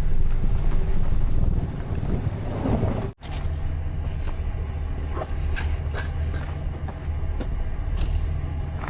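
A vehicle's engine running steadily as it drives off, with a short break in the sound about three seconds in.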